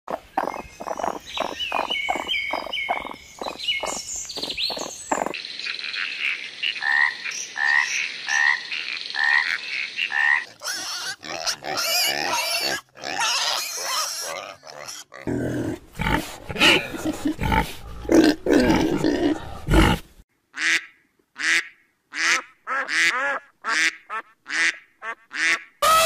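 A run of different animal calls spliced one after another: a raccoon chattering in fast rhythmic bursts at the start, a string of short repeated calls, then a pig grunting deeply about midway, and a row of short, evenly spaced calls near the end.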